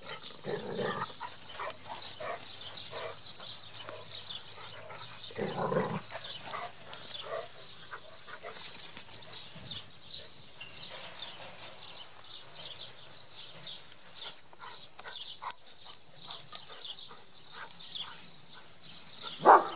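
Dogs playing together, with two short dog vocal sounds, about a second in and near six seconds, amid lighter scuffling; small birds chirp faintly.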